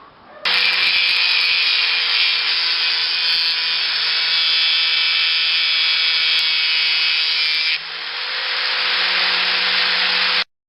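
A power tool running loud and steady, starting suddenly; near the end it drops in level and builds back up, then stops abruptly.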